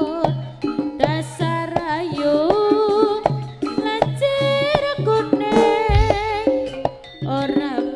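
Live jaranan music accompanying the dance: hand drums beating a rhythm under a melody line that bends and wavers with vibrato.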